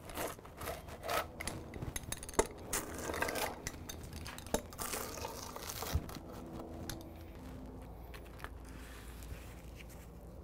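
Pizza cutter wheel rolling through a crisp fried flour tortilla heaped with toppings on a wooden board, the shell crackling and snapping. The cracks come thick over the first six seconds, then thin out to a few.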